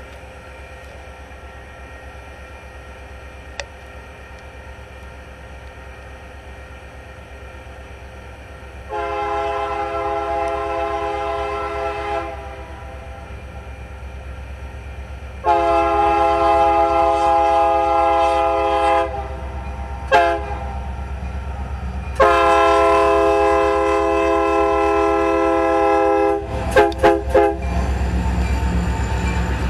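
Union Pacific diesel locomotive's air horn sounding the grade-crossing signal: two long blasts, a short one and a long one, then a few quick short toots. Under it the diesel engine's low rumble grows as the locomotive comes close and passes.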